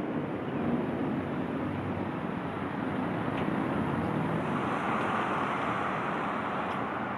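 Street traffic noise, a passing vehicle swelling louder about halfway through and easing off near the end.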